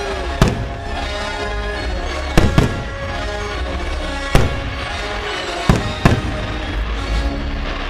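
Fireworks shells bursting in six sharp bangs, two of them in quick pairs, over music that plays on throughout the show.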